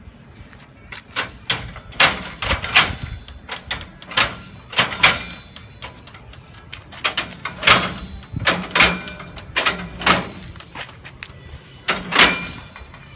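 Steel butterfly doors of a livestock weigh cage being worked by their lever handles: a run of sharp metal clanks and rattles, the loudest about two seconds in and near the end.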